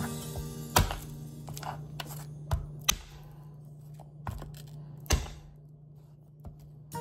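A handful of separate knocks and thuds from kitchen knife work on milkfish. The loudest come about a second in and about five seconds in, over faint background music.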